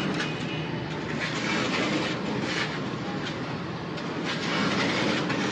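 Ribbon mixer running, its steel outer and inner spiral ribbons churning lumpy powder in the trough, with a steady mechanical clatter and rumble.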